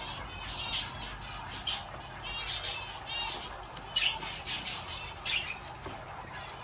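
Many aviary birds chirping and squawking, short calls following one another every half second or so.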